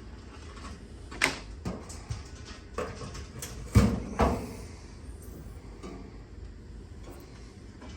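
Steel top tool chest being handled: a few sharp metallic knocks and clunks, the loudest about four seconds in, with a sliding sound between them.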